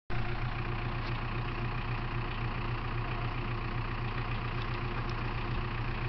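Tractor engine idling steadily, holding a low, even hum.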